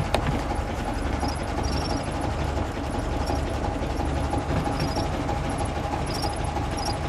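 1936 Alvis drophead coupe's engine idling steadily at about 500–600 rpm, an even mechanical hum with light ticking over it.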